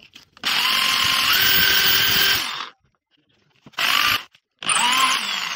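Handheld electric drill run in three short bursts, spinning a small wooden drum in its chuck. Its whine steps up in pitch partway through the first, longest burst, and the last burst begins to wind down near the end as the drill coasts.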